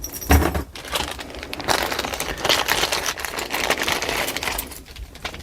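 Packaging crinkling and rustling as it is handled, an irregular crackle through most of the stretch, with a soft thump just after it begins.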